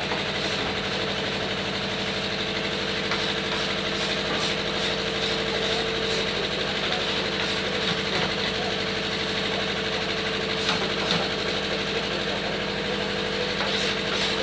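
A machine running with a steady, unchanging hum, with faint short scratchy strokes over it.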